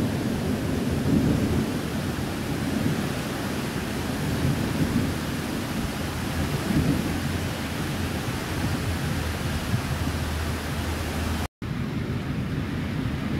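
Heavy rain pouring steadily in a thunderstorm, with a low rolling rumble of distant thunder underneath. The sound cuts out for an instant near the end.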